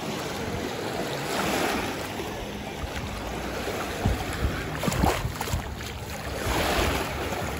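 Small lake waves washing and lapping over sandy, stony shallows, swelling and easing every few seconds, with wind noise on the microphone. A few brief splashes come from wading feet about four to five seconds in.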